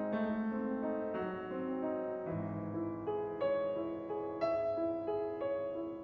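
Gentle piano background music, a new chord struck about once a second.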